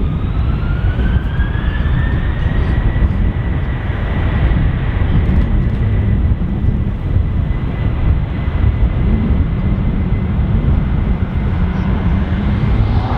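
Airbus A330-300 airliner's jet engines spooling up for takeoff: a whine rises over the first couple of seconds and then holds steady over a loud, low rumble. Near the end the noise swells.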